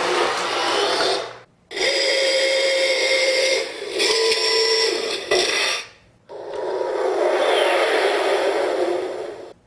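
Remote-control toy jet transporter running in three bursts of whirring, hissing noise with a faint whine, cutting off sharply between bursts as it is driven by the remote.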